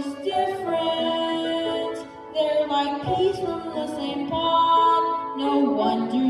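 A solo voice singing a slow song over instrumental accompaniment, holding long notes.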